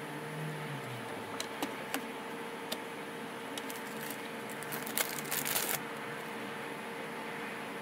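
Scattered light clicks and taps, with a short run of them about five seconds in, over a steady hum.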